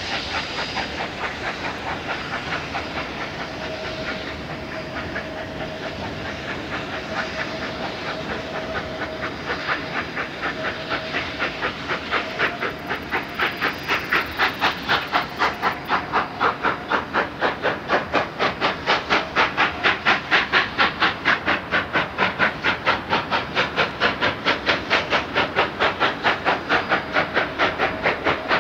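Narrow-gauge steam locomotive working upgrade, its exhaust chuffing in a steady beat of about four chuffs a second that grows louder and crisper about halfway through. A faint steady high tone is held for several seconds in the first half.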